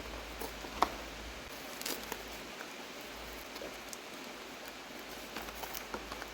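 Light rustling and small scattered clicks of engine rebuild kit parts and their packaging being handled, with one sharper click about a second in, over a steady faint hiss.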